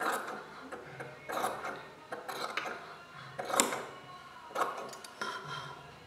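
Large brass-handled tailoring scissors snipping through cotton fabric and stitched canvas interfacing, a series of short sharp snips roughly once a second, trimming the seam allowance of a sewn collar evenly.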